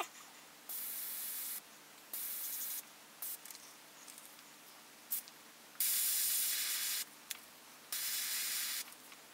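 Gravity-feed airbrush spraying ink in about five short hissing bursts, each about a second long, with pauses between them as the trigger is pressed and released.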